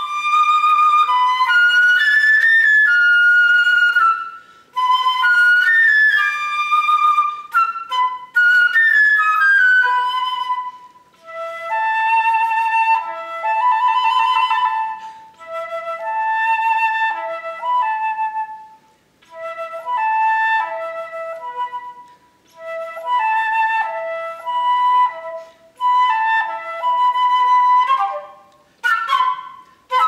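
Unaccompanied concert flute playing quick phrases of short notes that imitate bird calls, with brief pauses between phrases.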